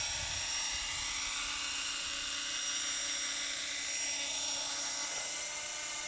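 Electric Thunder Tiger Innovator MD-530 model helicopter: a steady high whine of its motor and spinning rotor as it hovers low and sets down on the pad.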